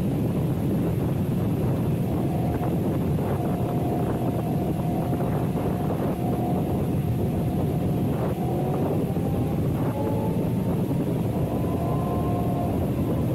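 Can-Am Renegade quad's V-twin engine running steadily under way, with wind noise on the microphone. A faint whine rises slowly in pitch in the second half.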